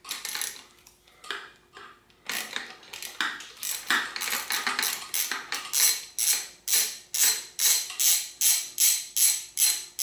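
3/8-inch-drive ratchet wrench clicking as it works a long hex socket on an extension, loosening the 5 mm hex bolt deep inside a RockShox Quadra 21R fork leg. The clicks are irregular at first, then settle into an even run of about three ratchet strokes a second from about halfway.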